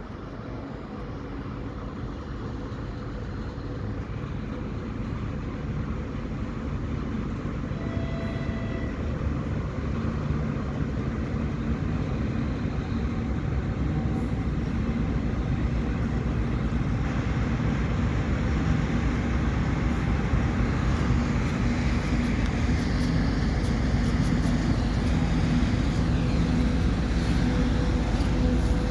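ChS4 electric locomotive standing with its train, its machinery running in a steady low drone with a hum that grows gradually louder.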